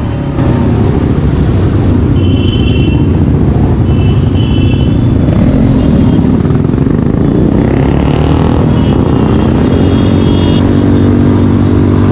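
Motorcycle engine running at speed with heavy wind rush on the microphone. About two-thirds of the way in, the engine note climbs steadily as the bike accelerates.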